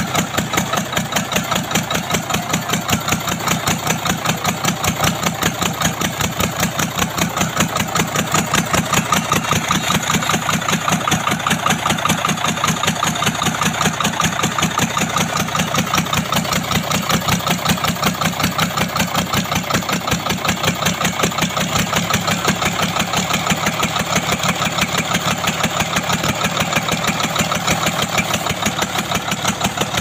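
Cummins diesel engine idling steadily on a stand, its exhaust manifold removed, so the exhaust comes straight out of the open ports in a rapid, even pulsing.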